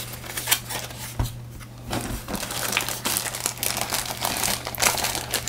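Clear plastic bag around an HDMI cable crinkling as it is handled and slid out of a cardboard sleeve, with a few separate clicks at first. The crackling becomes dense about two seconds in.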